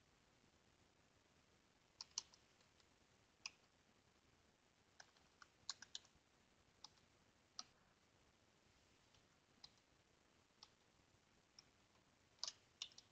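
Computer keyboard keys clicking in slow, scattered keystrokes with pauses between them, starting about two seconds in and bunching up near the end.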